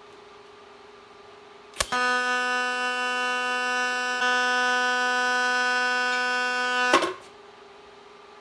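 TIG welding arc on cast bronze: a steady, even-pitched electric buzz for about five seconds, starting with a sharp crack about two seconds in and cut off with another near the end.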